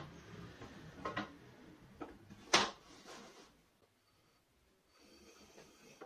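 Wooden bars and a small wooden block knocked and set down on a tabletop: a few sharp wooden knocks, the loudest about two and a half seconds in, then quieter handling.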